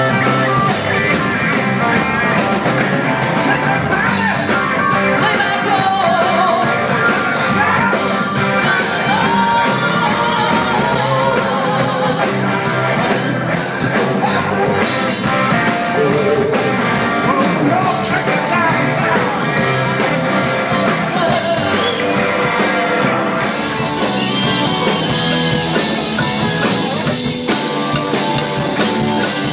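Rock band playing loud and steady: electric guitar, drum kit with steady cymbal hits, and singing.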